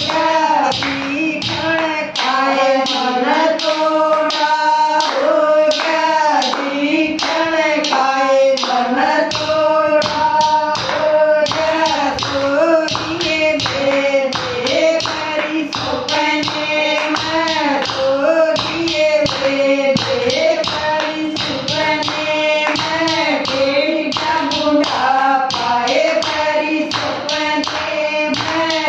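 A group of women singing a devotional bhajan together, keeping time with steady rhythmic hand clapping.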